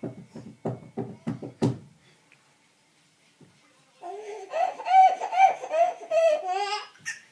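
Baby laughing at peek-a-boo: a quick run of belly laughs, a pause of about two seconds, then a long high-pitched squealing laugh that wavers in pitch.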